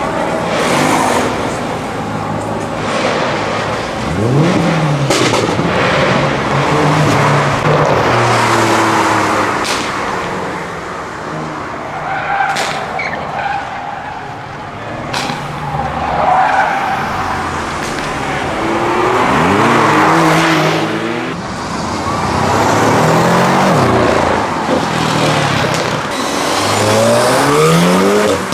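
Car engines revving hard and accelerating away several times, each run a rising engine note, over the rough noise of tyres spinning and skidding. A few sharp cracks sound in the middle.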